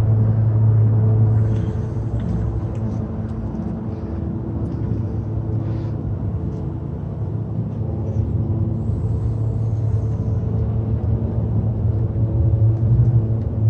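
Steady low hum of an idling engine, with a few faint clicks over it.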